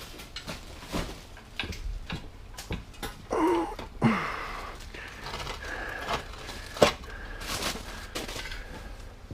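Scattered light knocks, clicks and scrapes of objects being handled, with a short squeak about three and a half seconds in and a sharper knock near seven seconds.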